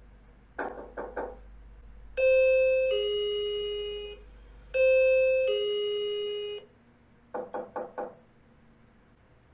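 Two-tone doorbell chime going ding-dong twice, each a higher note falling to a lower one, with knocking on a door before and after: about three quick knocks at the start and about four near the end.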